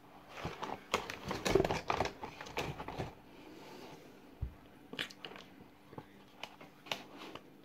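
Dry cornflour being eaten through a straw: a dense run of crunchy crackles for about two and a half seconds, then scattered single crackles.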